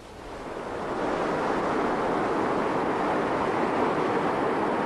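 Water rushing through a river weir: a steady rush that swells up over the first second and then holds.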